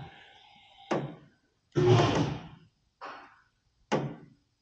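Metal knocks from a car frame-straightening rack pulling a bent bumper with chains under tension: two sharp knocks about three seconds apart, with a short loud burst of noise between them.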